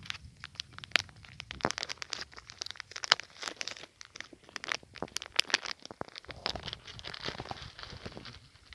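Irregular crunching and crackling clicks of dry twigs and gravel being stepped on and shifted, thickening into a denser crackle about two-thirds of the way in.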